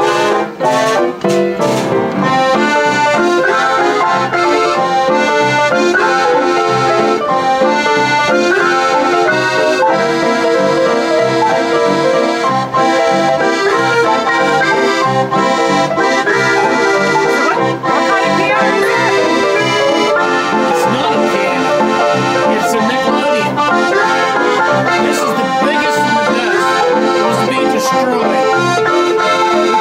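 Nickelodeon orchestrion playing a tune: player piano with its built-in accordion carrying the melody over a steady beat, with a few sharp clicks near the start.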